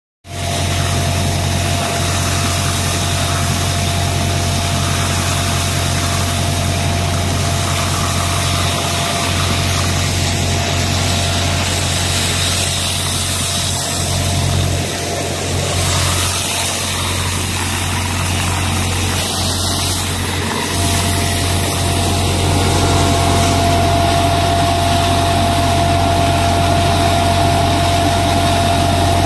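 Hasatsan H2200 hazelnut harvester running behind its tractor: a steady engine hum with a constant thin whine from the machine and the rush of air through its suction hose as it picks up nuts and leaves, a little louder near the end.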